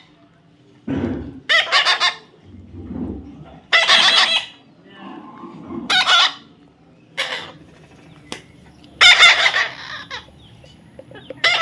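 Baby parrot giving loud, harsh, raspy squawks, about five of them a couple of seconds apart.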